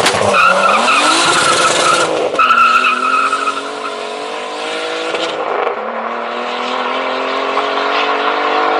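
Turbocharged BMW E46 launching hard with its tyres squealing, then its engine pulling up through the gears. The pitch climbs and drops back at each shift, about two and five and a half seconds in.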